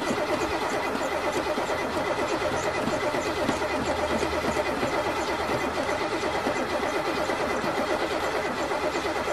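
An old car's engine cranking over on the starter motor without catching, an even rhythmic chugging that keeps going: a hard start, with the engine failing to fire.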